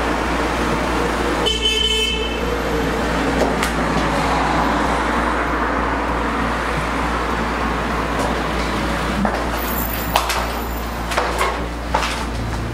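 Steady road traffic noise with a short car horn toot about a second and a half in; a few sharp clicks or knocks near the end.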